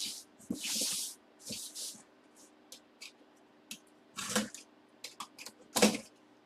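A cardboard shipping box being cut open and handled. In the first two seconds a box cutter slices through packing tape with a few short hissing rips. Then the cardboard flaps rustle and click, with two hard cardboard knocks about four and six seconds in, the second the loudest.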